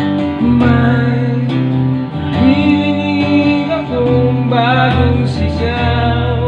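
A man singing a slow Tagalog song line over a strummed electric guitar, both played through a small budget USB mixer as a sound test, with the mixer's delay effect on the voice.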